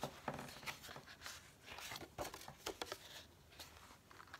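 Card stock rustling and tapping as a folded pop-up card is handled, closed and pressed flat by hand: scattered light rustles and clicks, thinning out near the end.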